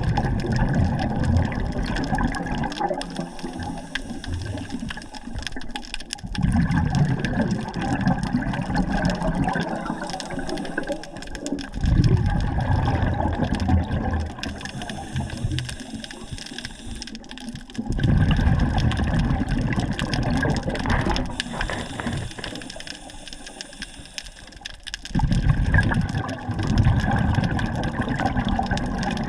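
A scuba diver's exhaled bubbles rushing from the regulator underwater, in gurgling bursts about every six seconds, over a steady underwater hiss.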